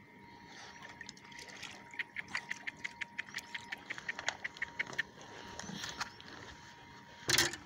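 Water splashing and lapping around a young moose swimming close beside a paddleboard, with a quick run of small clicks in the middle and a sudden loud splash or bump near the end.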